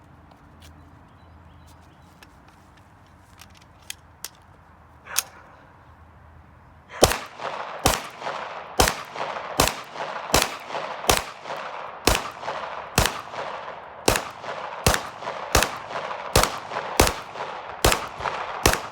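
Glock 17 9mm pistol fired in rapid succession, about seventeen shots a little more than one a second, each followed by a short echo. The shooting starts about a third of the way in, after a few faint handling clicks.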